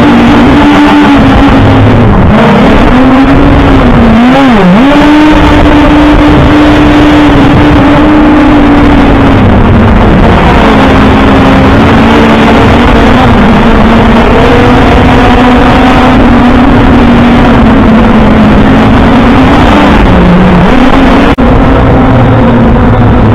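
Quadcopter drone's propeller motors whining as heard from its own onboard camera, a steady hum whose pitch dips briefly a few times as the throttle changes. Heavy wind noise buffets the microphone throughout, and the sound breaks off for an instant near the end.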